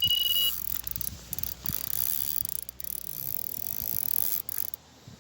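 An electronic carp bite alarm's steady tone cuts off about half a second in. Then a fishing reel clicks irregularly as a hooked carp is played.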